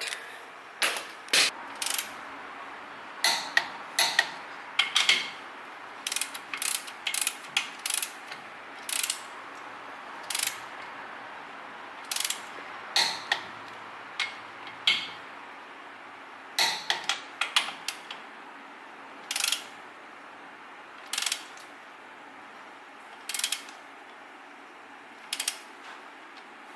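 Torque wrench ratcheting and clicking on the knuckle stud nuts of a Toyota solid front axle as they are brought to 70 foot-pounds: short sharp clicks at uneven intervals, thinning out to single clicks about two seconds apart near the end.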